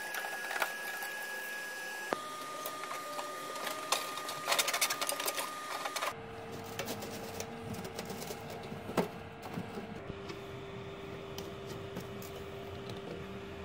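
Metal stove parts being handled during reassembly: scattered clicks and rattles, busiest about four to five seconds in, with one sharp click later. Under them runs a steady hum whose pitch jumps at each of three abrupt cuts.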